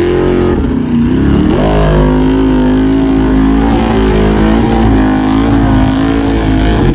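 Formula Offroad race truck's engine revving hard under load: the pitch dips in the first second, climbs back and holds at high revs with small wavers, then cuts off suddenly near the end.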